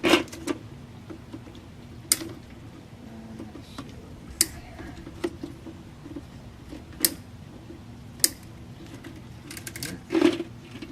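Plastic tie-wrap (cable tie) tails being snipped off with cutters: a series of sharp clicks, about seven in all, a second or two apart.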